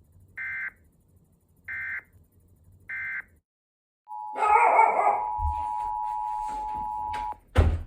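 Three short data bursts of an Emergency Alert System end-of-message signal, about a second apart. Then the two-tone EAS attention signal, held steady for about three seconds, with a loud brief noisy sound over its start and a sharp crack just after it stops.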